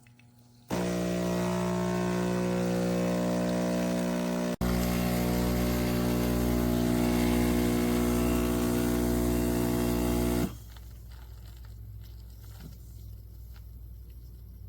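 Espresso machine's pump humming steadily as it pushes water through. It breaks off for an instant about four seconds in and falls to a much quieter background about ten seconds in.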